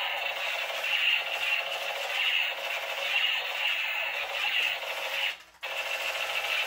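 Battery-powered light-up toy gun playing its electronic sound effect through its small speaker: a continuous buzzing noise that pulses about twice a second, breaking off for a moment about five seconds in and then starting again.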